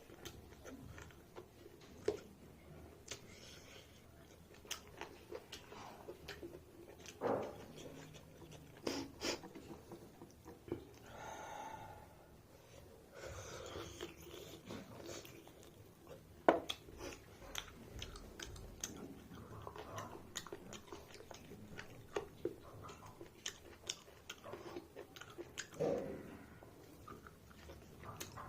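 A person chewing a mouthful of mutton and rice, with irregular wet smacks and clicks throughout and a sharper click about sixteen seconds in.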